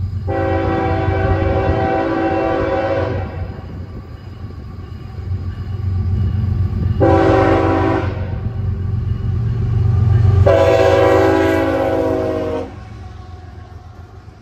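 Multi-chime air horn of CSX 3183, a GE ES44AH diesel locomotive, sounding three blasts, long, short, long, as it approaches: the end of the grade-crossing warning. Under the horn, the locomotive and its train of empty coal hoppers rumble steadily, louder as they pass close by near the end.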